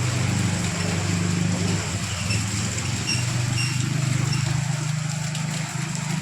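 A motor vehicle engine running steadily, a low hum that shifts pitch slightly a couple of times, over a steady hiss.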